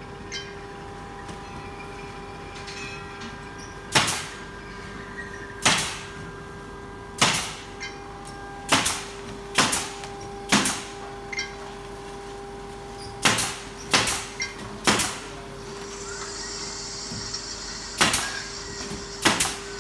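A series of sharp knocks or thuds, about a dozen, irregularly spaced one to two seconds apart, each with a short tail, over a steady electrical hum.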